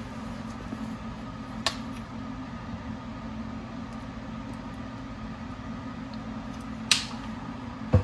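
Steady low mechanical hum in a small room, with a sharp click about one and a half seconds in and another near seven seconds as the rinse-aid bottle and the dishwasher door's dispenser are handled, and a knock at the very end.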